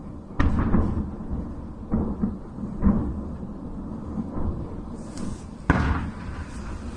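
Distant detonations of ammunition at a burning military depot: a series of deep booms over a low rumble, the loudest about half a second in, about three seconds in and near the end.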